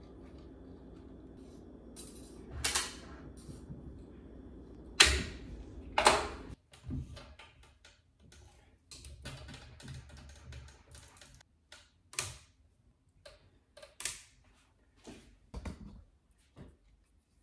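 Tennis racket being strung on a Gamma X drop-weight stringer: separate sharp clicks of the clamps and mechanism, and short rasping zips of string pulled through the frame. The loudest stroke comes about five seconds in.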